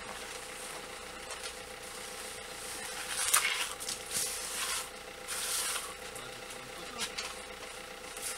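A hand trowel scraping plaster across a wall in several rubbing strokes around the middle, over a faint steady hum.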